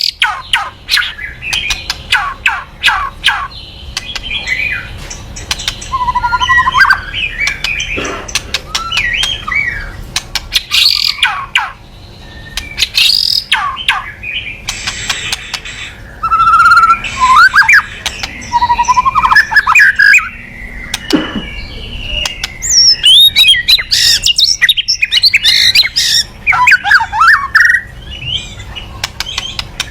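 White-rumped shama (murai batu) singing loudly: a varied song of rapid rattling clicks, the 'kretekan' rattle that bird keepers play to rouse a shama's aggression, mixed with whistled phrases and harsher notes, with short pauses between bouts.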